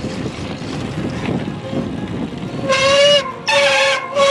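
Bicycle tyres rolling and crunching through sand, then, about three seconds in, three long, steady horn blasts in quick succession.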